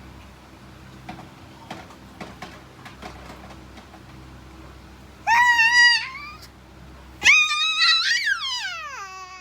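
Baby squealing happily in two loud, high-pitched shrieks: a short one about five seconds in, then a longer one a couple of seconds later that slides down in pitch.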